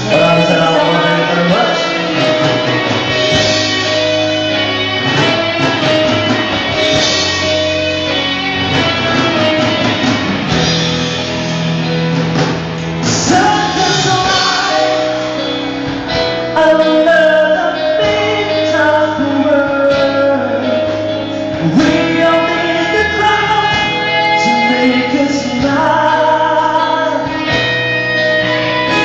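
Live band playing a song: a singer over guitar and other instruments, without a break.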